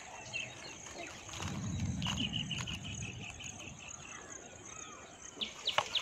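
Kitchen knife slicing raw potato onto a small wooden board, with a few sharp taps of the blade on the board near the end. A bird's quick run of small ticking calls and a low rumble sit in the middle.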